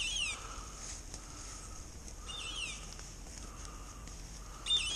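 Hunting dog's beeper collar sounding a short, high, falling electronic chirp three times, about two and a half seconds apart: the regular locating beep that lets hunters follow the dog through cover.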